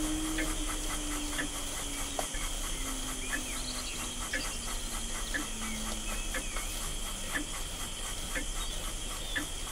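Retrol model steam beam engine and its horizontal boiler running: a steady hiss from the boiler under gurgling exhaust beats, a little under two a second, with a low hum that slowly wavers in pitch.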